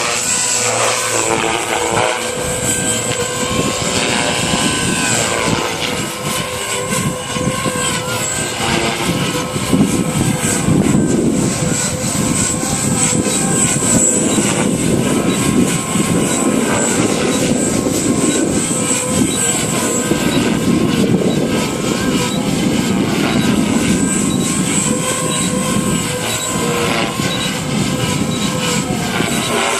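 JR Forza 450 radio-controlled helicopter in flight: a steady high motor whine over the hum of the rotor, its pitch shifting up and down during the first few seconds.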